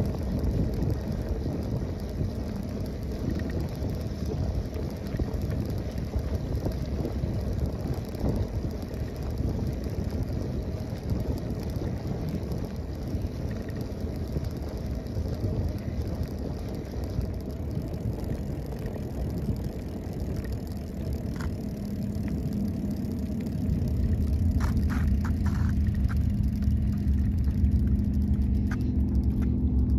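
Wind buffeting the microphone and bike tyres rolling over brick pavers, a steady low rumble. A little past two-thirds in, a steady low drone comes in and grows louder, with a few light clicks.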